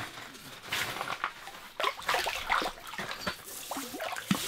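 A hooked whitefish thrashing at the surface of an ice-fishing hole: irregular splashes of water, growing louder and busier about halfway through.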